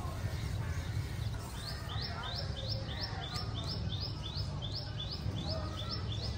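A bird repeating a short, high call over and over, about three times a second, starting about a second and a half in, over a steady low rumble.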